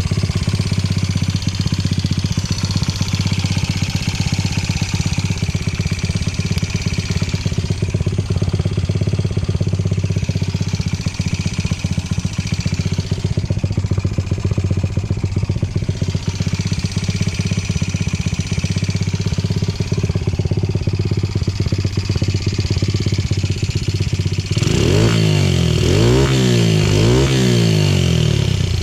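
Honda Ape 50 single-cylinder four-stroke engine, bored up to 82 cc with a Kitaco kit and breathing through a Supertrap open-type full exhaust, idling steadily. About 24 seconds in, the throttle is blipped several times and the revs rise and fall quickly. It runs without abnormal noises.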